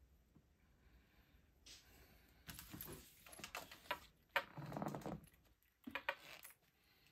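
Fabric rustling with small irregular metallic clicks and clinks as a zipper panel and its metal zipper pull are handled, with one sharper click in the middle.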